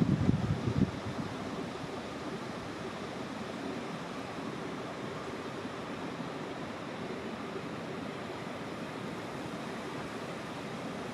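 Wind blowing steadily, with low gusts buffeting the microphone in the first second.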